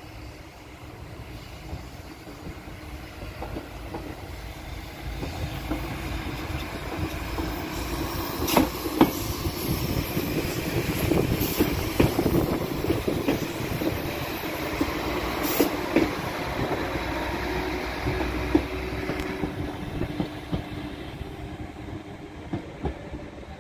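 Diesel multiple unit passing close by on the station tracks: its engines run and its wheels click over the rail joints and points. It grows louder towards the middle, with a few sharp clicks, and fades near the end.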